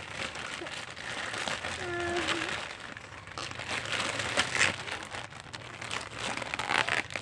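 A plastic courier pouch crinkling and rustling in the hands as it is opened, with irregular crackles throughout. A short voiced sound comes about two seconds in.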